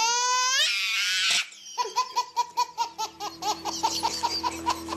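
Baby laughing hard: a high squeal rising in pitch at first, then a quick run of short giggles, about five a second.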